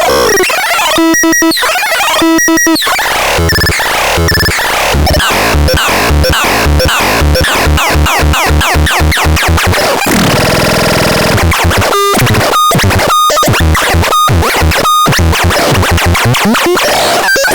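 Synthesizer producing harsh, noisy electronic sounds: sweeping pitches and fast rhythmic pulsing, a held buzzing tone about ten seconds in, then a run of short pitched beeps with brief gaps between them.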